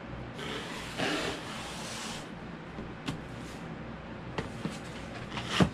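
Cardboard boxes sliding and scraping across a tabletop, then a few light knocks as they are set down, the loudest just before the end.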